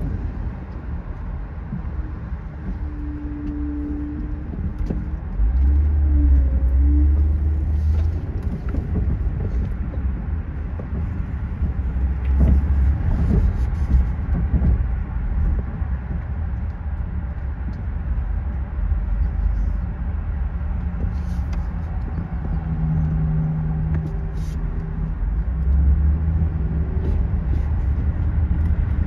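Car driving on city streets: a steady low engine and road rumble, with a fainter hum coming and going a few seconds in and again near the end.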